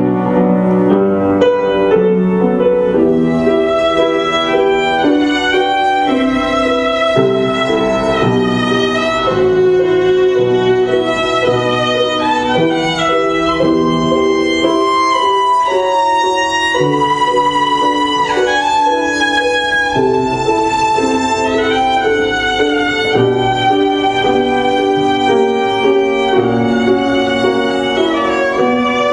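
Violin bowing a classical melody of held and gliding notes, with piano accompaniment underneath.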